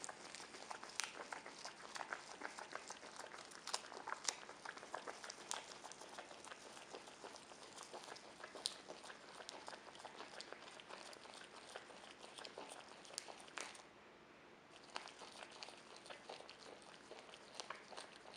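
Capybara chewing curly kale up close: a quick, continuous run of small crunching clicks as the leaves are bitten and chewed, with a pause of about a second roughly three-quarters of the way through.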